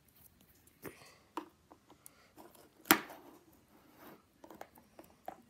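Faint taps and clicks of hands handling a small clear plastic storage box and poking the sticky homemade slime that sits on it, with one sharp plastic click about halfway through.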